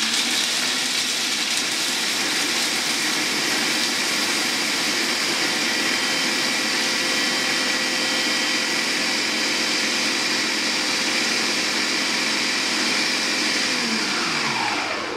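Electric food processor motor running steadily while grinding roasted peanuts and wafer biscuits into a fine powder. Near the end it is switched off and winds down with a falling whine.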